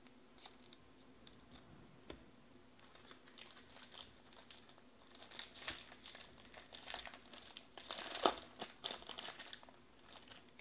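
Foil wrapper of a trading-card pack being handled, torn open and peeled back, crinkling. A few light clicks come first, then the crinkling grows dense about three seconds in, with the sharpest crackle about two-thirds of the way through.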